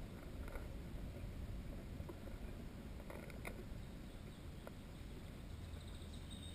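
Faint outdoor ambience: a steady low rumble, a few soft clicks around the middle, and a faint thin high note near the end.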